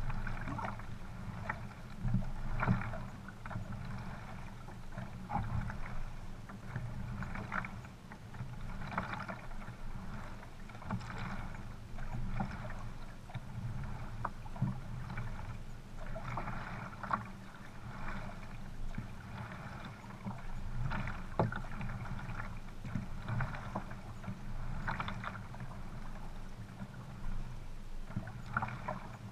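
Sprint kayaks under way: paddle blades splash into the water stroke after stroke, over a steady rush of water along the hulls.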